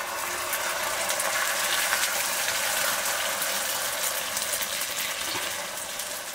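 Beaten egg sizzling in hot oil in an iron frying pan as it is poured in, a dense crackling hiss that swells over the first couple of seconds.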